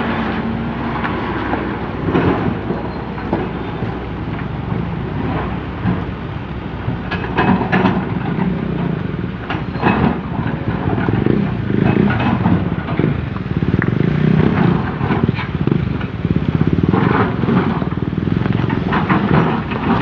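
Komatsu PC200CE hydraulic excavator's diesel engine running under load while digging, swelling and easing as it works. Repeated short knocks and clanks come through from the bucket and arm.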